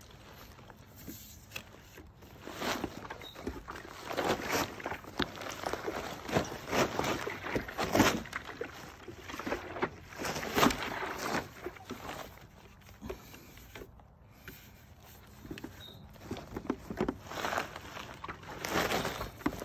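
Ozark Trail 45-quart hard plastic wheeled cooler being tipped over and turned on a plastic tarp: the tarp crinkling and the cooler's shell knocking and scraping, in irregular bursts with a quieter lull a little past the middle.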